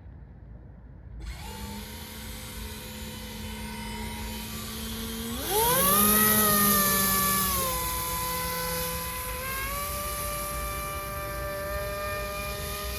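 Brushless electric motor (Roxxy 36-42, 930 kV, on a 4S lipo) spinning a three-blade 9x5 propeller inside a prop ring on an RC airboat, with a steady whine. About halfway through the throttle is opened and the whine climbs sharply in pitch and loudness, then eases back to a lower steady speed and rises slightly again.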